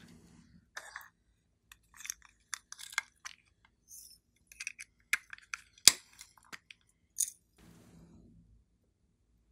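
Small plastic packets being cracked open and handled over a bowl of slime: a quick series of crackles and clicks, with one sharp snap about six seconds in.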